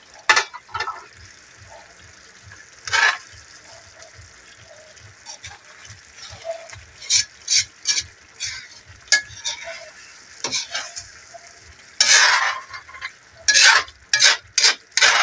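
A metal ladle stirring chicken caldereta in a metal wok, with sharp clinks and scrapes against the pan coming in bunches, busiest around the middle and near the end. A faint steady sizzle from the stew cooking on the heat runs underneath.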